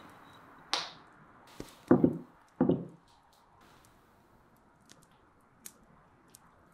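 Cutlery working on an earthenware plate on a wooden table: a brief scrape under a second in, two loud dull knocks around two seconds in, then a few faint light clicks as a spoon of cream is put on the food.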